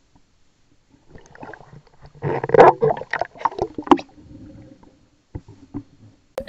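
Lake water splashing and gurgling around a handheld camera as it dips from the surface to just under the water, in irregular bursts that are loudest about two to four seconds in.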